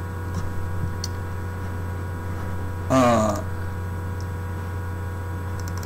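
Steady low electrical hum of room tone, with one short voiced sound from a man about halfway through and a few faint clicks near the end.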